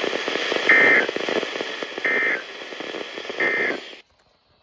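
Three short, evenly spaced two-tone data bursts of the Emergency Alert System end-of-message code over NOAA Weather Radio static. The static and the signal cut off abruptly about four seconds in, as the broadcast drops.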